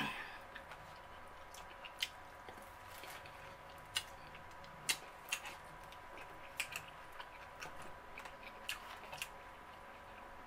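Eating sounds: a black plastic fork clicking and scraping in a foam takeout container, with soft chewing. The clicks come irregularly, roughly one every second or so, some sharper than others.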